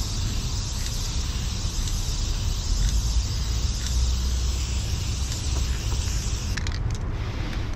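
Aerosol spray-paint can hissing steadily over a low rumble, with the hiss cutting out near the end.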